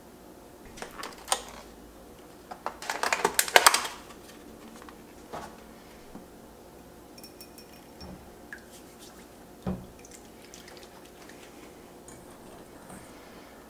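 Food being handled in a stainless steel mixing bowl: a few clicks, then a dense run of wet clatter and clinks lasting about a second, followed by scattered small ticks and a single knock a few seconds later.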